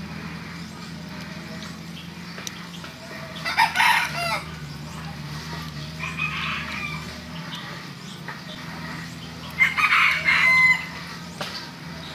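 A rooster crowing twice, once about four seconds in and again around ten seconds in, with a fainter call between.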